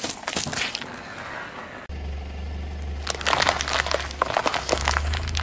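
A car tyre slowly crushing small wrapped cone snacks, with crackling and popping. Then a tyre crushes a clear plastic tray of muffins: a dense run of plastic cracks and crunches about three seconds in, over a low steady hum.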